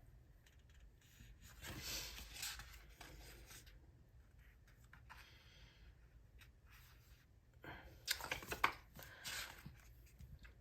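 Faint rustling and crinkling of paper sticker sheets being handled and shuffled, with a cluster of sharper crinkles and taps about eight to nine seconds in.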